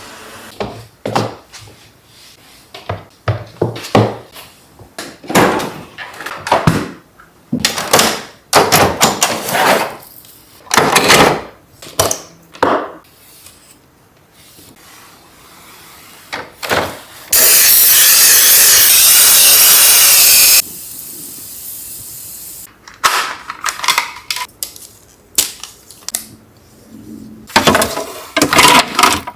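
Household cleaning sounds: a long run of knocks, clatters and rustles as things are handled and moved. Midway a loud, steady hiss starts and stops abruptly after about three seconds.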